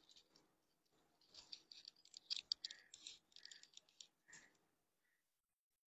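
Crisp rustling and crinkling of a stiff organza chador being handled and unfolded, in quick bursts that stop about four and a half seconds in.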